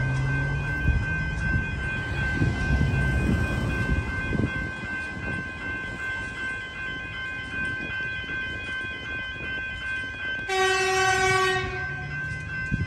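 Level crossing warning bells ringing steadily. About ten seconds in, an approaching suburban electric train sounds its horn once for about a second. A low rumble sits under the bells in the first few seconds.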